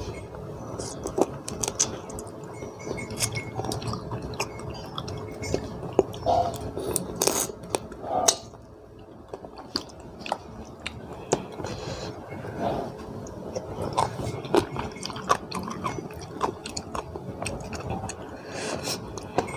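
A person chewing and crunching through spicy papaya salad with raw blue swimmer crab, in irregular wet clicks and crunches, with a faint steady hum underneath.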